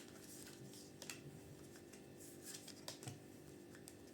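Near silence with a few faint, scattered clicks and soft rustles of tarot cards being handled.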